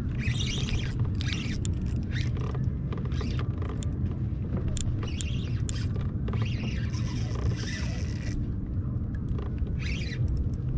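Steady low rumble throughout, with irregular short scratchy and clicking bursts from a spinning reel being cranked while a hooked fish is fought on a bent rod.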